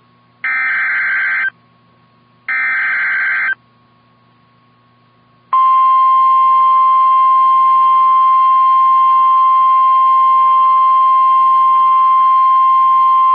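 NOAA Weather Radio Emergency Alert System alert. First come two one-second bursts of SAME header data tones, a second apart. About two seconds later the steady 1050 Hz warning alarm tone starts and holds, signalling the start of a new warning broadcast.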